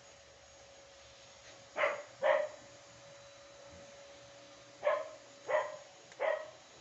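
A dog barking five times off camera: two barks in quick succession about two seconds in, then three more in a row from about five seconds in. A faint steady hum runs underneath.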